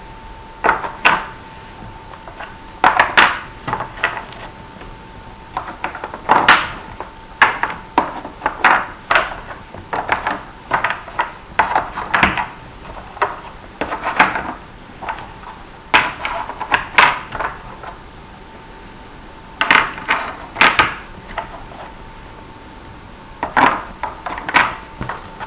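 Small geometric test blocks clicking and knocking as they are picked up and set one at a time into the slots of a Minnesota Spatial Relations Test board. The taps come quickly and irregularly, with a couple of short pauses, over a steady faint hum.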